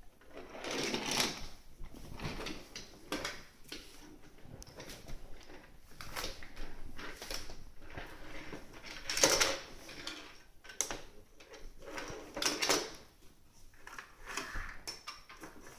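Wooden train track pieces and plastic toys knocking and clattering on a hard floor in irregular bursts, the loudest clatter about nine seconds in.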